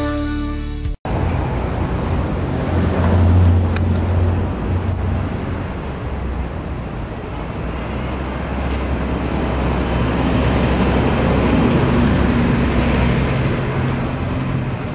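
A motor vehicle engine running steadily at a low hum, with outdoor traffic noise.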